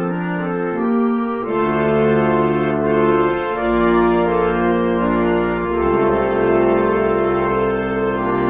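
Estey Style O reed organ from about 1917 played in slow sustained chords that change every two seconds or so, with a faint airy swish recurring about every second.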